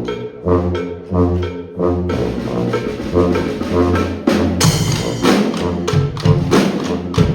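Street brass band playing a riff of repeated low brass notes. Drums and cymbals join about two seconds in, and the drumming grows heavier from about four and a half seconds.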